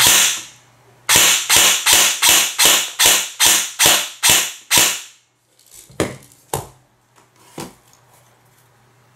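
G&G ARP 556 airsoft electric rifle firing semi-auto in quick succession: one shot, then about ten more at roughly two and a half a second, each a short sharp crack of the piston. It is in its stock setup with an M140 spring, high-speed motor and 11.1 V LiPo, shooting into a chronograph for a baseline velocity reading. A few quieter clicks follow near the end.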